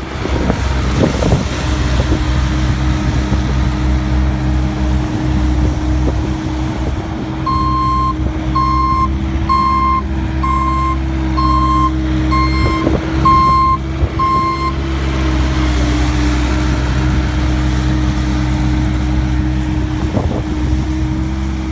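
Bobcat S450 skid-steer loader's diesel engine running steadily as its sweeper attachment brushes the road surface. Its reversing alarm beeps about once a second for several seconds in the middle.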